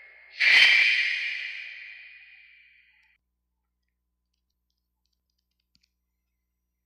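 A movie trailer's soundtrack ends on one sudden loud hit that rings out and fades over about two and a half seconds, then cuts to silence.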